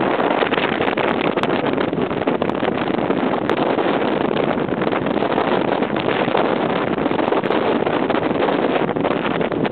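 Steady rush of wind and road noise from a moving car, heard from inside its cabin.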